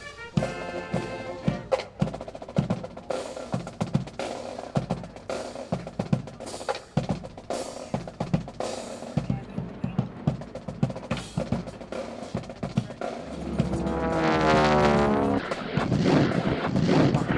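Military band music, with snare drum rolls and sharp percussion strokes. About three-quarters of the way through, a loud rushing sound swells and sweeps down in pitch.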